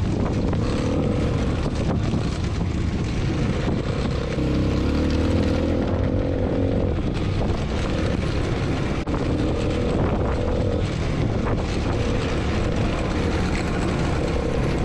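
Off-road go-kart's engine running steadily as it drives along a sandy dirt trail, its pitch shifting a few times as the speed changes, with a low rumble underneath.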